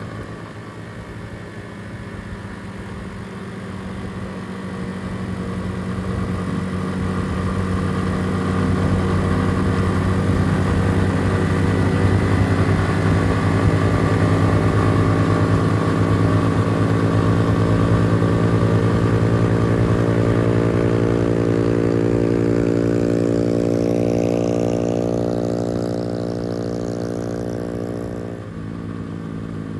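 Motorcycle engine running at a fairly steady speed while riding, growing louder through the middle and easing off near the end.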